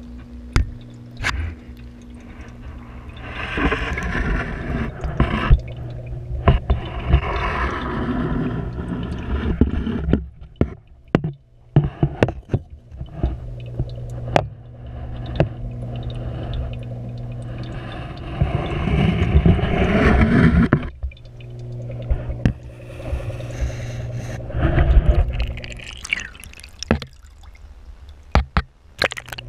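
Aquarium water heard through an underwater camera housing: a steady low hum with surges of gurgling, rushing water, and scattered sharp knocks and clicks as the housing is moved and bumps against the tank decor.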